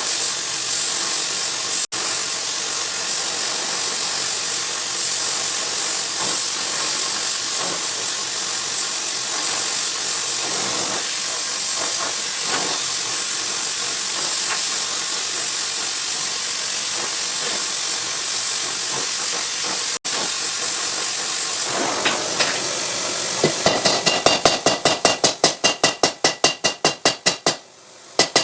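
Workshop machine noise: a steady hiss for most of the time, then near the end a fast run of mechanical blows, about six a second, that fade away.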